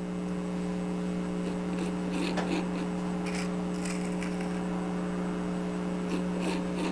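A steady electrical hum, with a few faint scrapes and light taps of small miniature bricks being handled and wood glue being spread.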